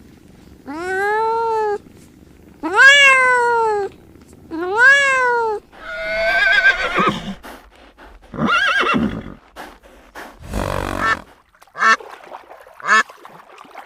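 A run of different farm animal calls. First come three drawn-out calls, each rising and then falling in pitch. A wavering call and rougher, lower calls follow, and near the end come short, sharp calls about a second apart.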